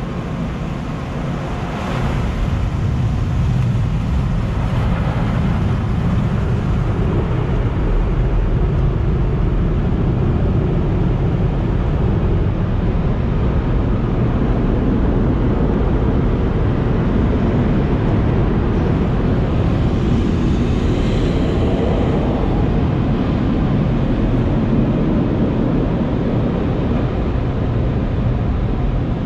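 Automatic car wash tunnel equipment running around the car, heard from inside the cabin: a steady, loud rushing rumble, heaviest in the low range.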